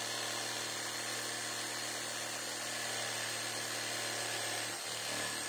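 Corded electric jigsaw running steadily while its blade cuts through a wooden board, sawing out a round blank for a sharpening wheel. An even motor hum with the rasp of the blade in the wood.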